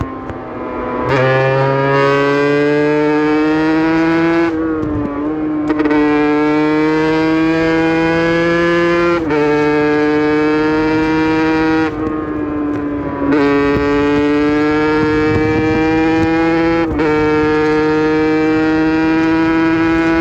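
Aprilia RS 125's single-cylinder two-stroke engine pulling hard uphill, its pitch climbing steadily in each gear with short breaks at the gear changes. The throttle is briefly closed about a second in and again around twelve seconds before it pulls again.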